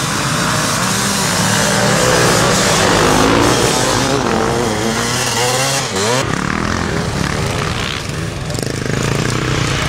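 Several motocross bikes' engines revving together, their pitches rising and falling, with one sharp rev climbing about six seconds in.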